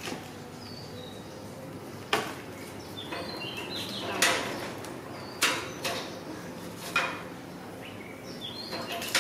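Several sharp knocks or clatters, about four spread over the seconds, with short high-pitched chirps in between.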